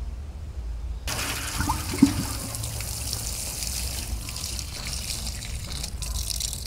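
Water spraying from a watering can's rose and pattering onto soil and plant leaves, starting about a second in and running steadily. A short knock about two seconds in.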